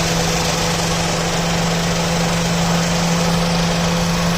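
Toyota Passo engine idling steadily with the AC switched on, the compressor turning on its freshly replaced pulley bearing; a constant low hum throughout.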